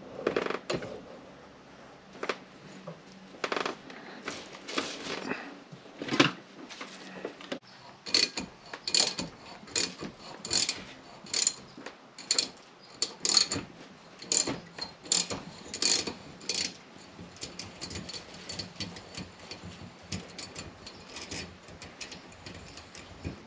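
Metal clanks as a bench vise is tightened, then a socket ratchet clicking in steady strokes, a little faster than one a second, turning a small fitting clamped in the vise; near the end the clicks come quicker and lighter.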